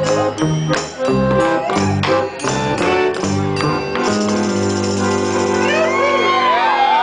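Live band music with a run of sharp staccato hits on the beat for about four seconds, then a held chord with voices whooping and shouting over it near the end.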